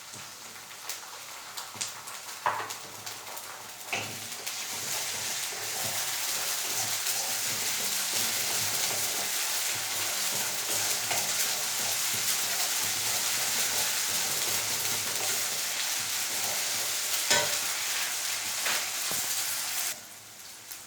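Onions, green chillies and ginger paste frying in hot mustard oil in a pan, stirred with a spatula that knocks against the pan a few times. About four seconds in, the sizzle grows louder and holds steady, then drops off near the end.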